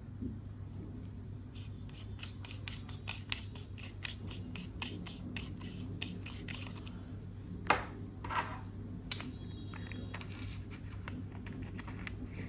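Box and packaging being handled: a quick run of scratching, rubbing and crinkling ticks, then a sharp click, the loudest sound, a little past halfway, followed by a softer scrape. A steady low hum runs underneath.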